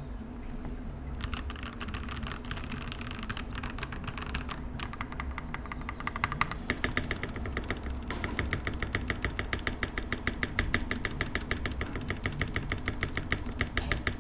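Typing on a Skyloong GK75 mechanical keyboard with lubed Gateron Pro Red linear switches and ABS keycaps. Rapid keystrokes start about a second in and turn faster and crisper about halfway through.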